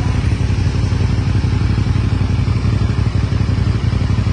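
CFMOTO NK 450's parallel-twin engine running steadily through its stock exhaust at a constant, idle-like speed, with a fast even pulse and no revving.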